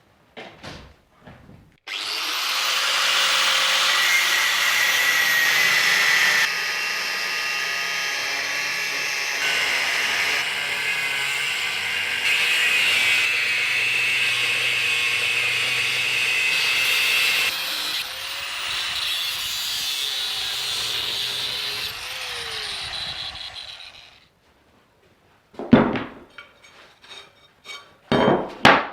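Handheld electric power tool cutting and drilling metal bracket stock, running steadily in several separate stretches with a steady whine, then spinning down. A few sharp metallic knocks follow near the end as the metal is handled.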